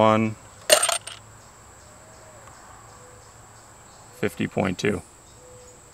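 Metal arrow insert set down on a digital pocket scale's metal pan: one short, sharp clack about a second in. A steady high-pitched tone runs underneath.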